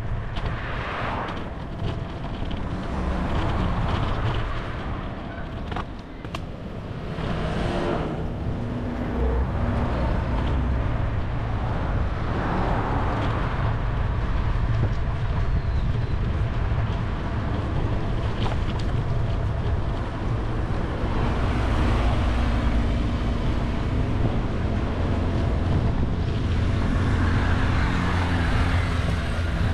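Road traffic: several cars pass one after another, each a swell of tyre and engine noise that rises and fades, over a steady low rumble of wind on the microphone.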